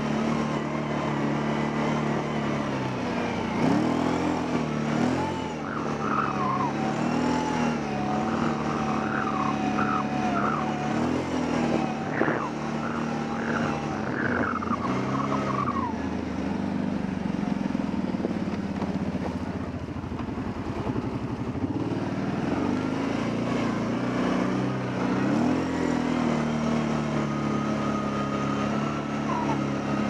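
Kawasaki Brute Force 750 ATV's V-twin engine running while the quad is ridden along a trail, its pitch rising and falling with the throttle. A higher wavering whine and a few short squeals come in for a stretch in the middle.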